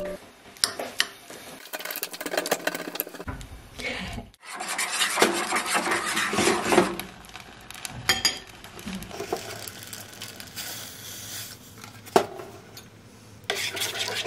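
A metal spoon scraping and clinking, first against a ceramic bowl as it slices a banana, then against a metal saucepan as it stirs porridge. There are scattered sharp clinks, with a longer stretch of rasping scraping in the middle and again near the end.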